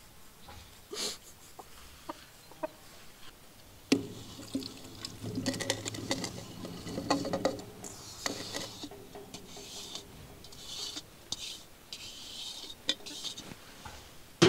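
Chickens clucking faintly, then a sharp knock about four seconds in, followed by sugar poured from a brass scale pan into a ceramic rumtopf crock: repeated short hissing pours with small clinks of metal on pottery.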